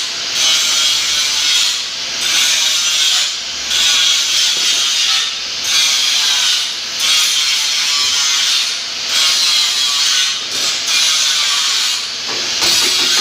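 Abrasive strokes on car bodywork, a rhythmic back-and-forth rasping hiss at about one stroke every second and a half, typical of hand-sanding or filing a repaired body panel.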